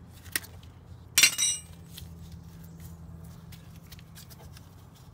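Side cutters snipping a plastic cable tie with a sharp click, then a loud metallic clink with a brief ring about a second in, followed by light knocks as the cast-iron brake caliper is handled.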